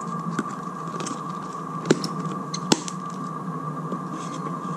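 Clear plastic deli cups clicking and tapping as they are handled and set down in a foam-lined box: a few sharp clicks, the loudest nearly three seconds in, over a steady hum.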